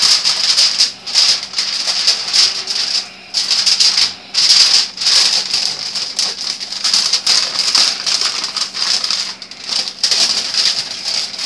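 Aluminum foil crinkling and rustling as it is folded and rolled down into a double wrap, in uneven spells with a few brief pauses.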